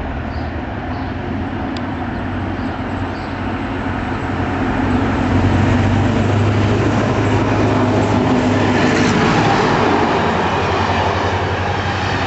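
GM-built HŽ 2062 diesel-electric locomotive approaching with a long passenger train, its steady engine drone growing louder as it nears. About three-quarters of the way through, a broad rushing of wheels and coaches takes over as the train runs past.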